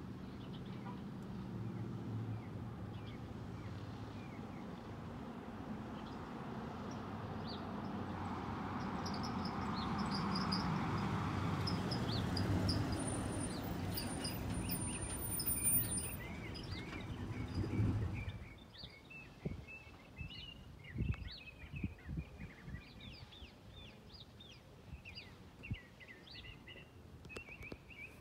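A vehicle engine runs with road-like noise that swells toward the middle and cuts off suddenly about eighteen seconds in. After that, birds chirp and a few faint thuds sound.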